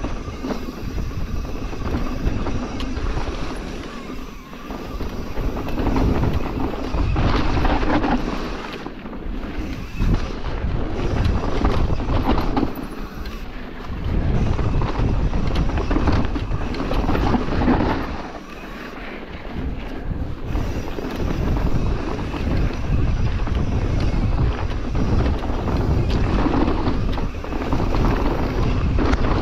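Mountain bike riding fast down a dirt trail: wind rushes over the microphone along with rolling tyre and trail noise, swelling and easing every few seconds as the speed changes.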